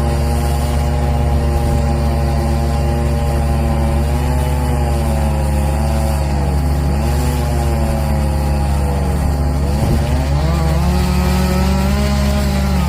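Engines of tree-work power equipment running: a steady low drone, with an engine note that sags in pitch twice midway, as under load, and climbs again about ten seconds in.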